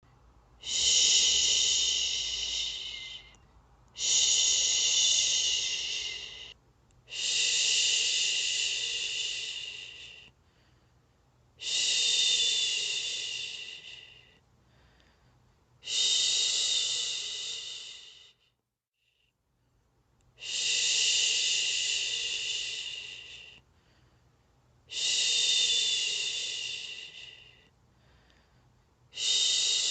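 A person shushing a baby to sleep: a long 'shhh' repeated about every four seconds, eight times, each one starting strong and trailing off.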